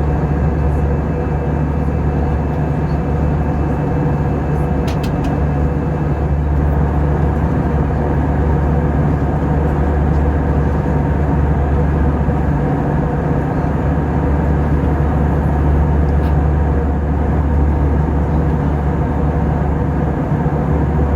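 Steady cabin drone of an Airbus A320 in cruise: engine and airflow noise over a constant low hum. A few faint clicks about five seconds in and again near sixteen seconds.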